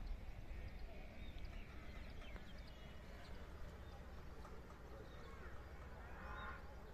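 Quiet open-air ambience on a moving chairsift ride: a steady low rumble, with faint distant voices and a short faint call about six seconds in.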